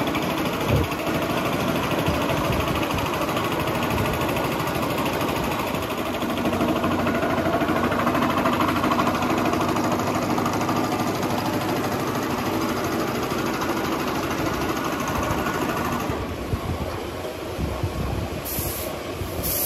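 Steady noise of running workshop machinery with a fast, regular rattle; about 16 seconds in it turns slightly quieter and more uneven.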